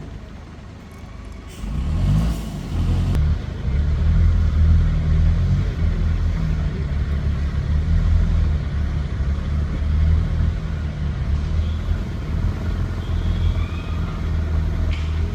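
A large engine running close by, its low rumble coming in loud about a second and a half in and then holding with small rises and falls.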